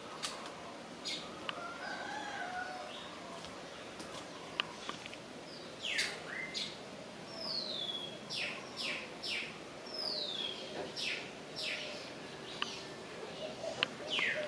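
Birds calling. Scattered sharp notes at first, then from about six seconds in a run of short, steeply down-sweeping calls, with a few longer descending notes among them, over a steady background hiss.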